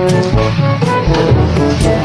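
Background music with a steady drum beat and a bright instrumental melody, jazzy in feel.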